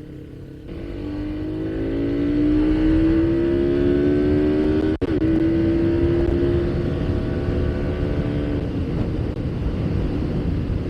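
Yamaha Sniper 150 motorcycle's single-cylinder engine under way, its pitch climbing slowly as the bike gathers speed, then holding steady over wind and road rush. There is a momentary break in the sound about five seconds in.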